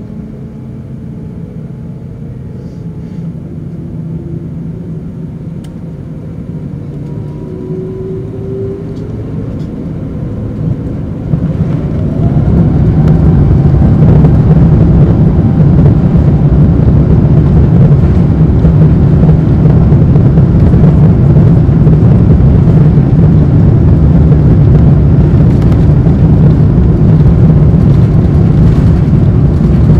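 Rolls-Royce Trent XWB engines of an Airbus A350-900, heard from inside the cabin, whining with a rising pitch as they spool up for takeoff. About twelve seconds in the sound steps up to a loud, steady rumble of takeoff thrust as the aircraft rolls down the runway.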